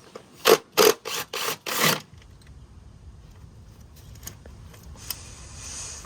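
Ratchet wrench clicking in five quick strokes, working a spark plug loose from the engine, then stopping about two seconds in.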